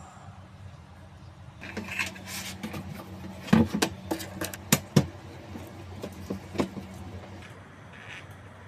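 Tools and metal parts being handled during refrigeration repair work: an irregular run of clinks and knocks, loudest a few seconds in, over a steady low hum.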